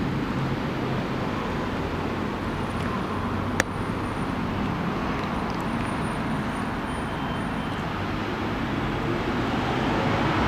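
Steady outdoor city ambience of distant road traffic, growing a little louder near the end, with one sharp click about three and a half seconds in.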